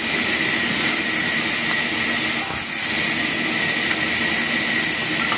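A wood-cutting machine running with a steady, loud hiss over a low hum.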